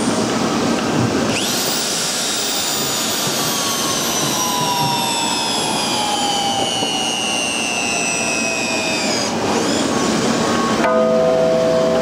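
TONE feedback torque wrench tightening a large nut to its 11,400 inch-pound final torque. Its drive whines and slowly falls in pitch, stopping about nine seconds in. A steady tone comes in about two seconds later, over a constant mechanical hum.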